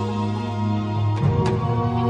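Documentary background score: sustained chords that change to a new chord a little over a second in.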